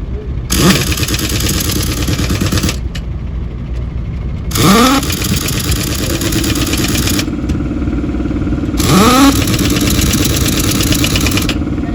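Pneumatic impact wrench running in three bursts of a few seconds each, every one spinning up with a quick rising whine into a rattling hammer, as wheel nuts on a truck wheel are driven. A steady engine hum runs underneath.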